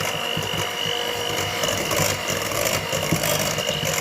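Electric hand mixer running steadily at one speed, a high motor whine with the beaters rattling in the bowl, as desiccated coconut is mixed into the cake batter.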